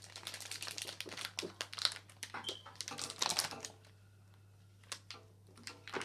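Foil blind-bag packets crinkling and crackling as hands rummage through a bowl of them: a fast, dense run of crackles that thins out a little past halfway, with one lone click near the end.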